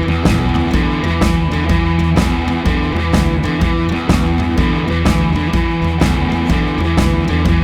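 Background music with a steady drum beat, about two hits a second.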